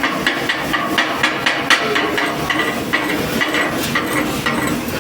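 A hammer knocking the slag off a freshly laid 6013 arc-weld bead on steel plate: rapid, irregular metal-on-metal strikes, about four a second, each with a ringing note.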